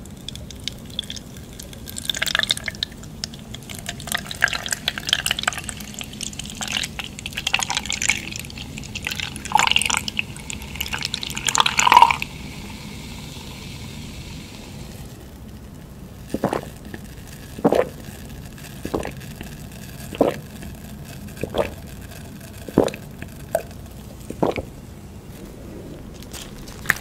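Soda poured from a can into a glass of strawberries, splashing and fizzing with a crackly hiss that keeps going after the pour stops. Then the drink is swallowed in a string of about ten gulps, roughly one a second.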